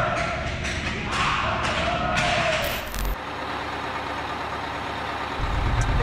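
Players shouting and sharp knocks echoing around an indoor ice rink, cut off about three seconds in. Then the steady noise inside a moving motorcoach, with a low engine rumble coming up near the end.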